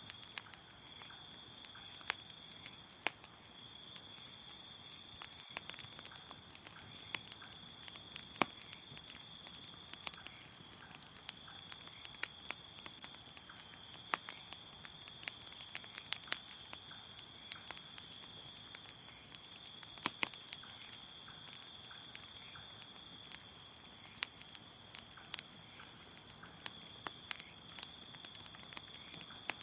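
Crickets chirping in a continuous high trill, over a wood fire crackling with sharp, irregular pops every second or so.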